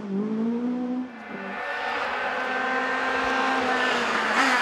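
Rally car engine running at high revs, its note dipping briefly about a second in, then growing steadily louder.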